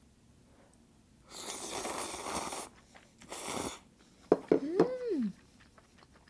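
Instant noodles slurped into the mouth: one long noisy slurp about a second in, then a shorter second slurp. Wet mouth clicks and a brief hummed voice sound follow while chewing.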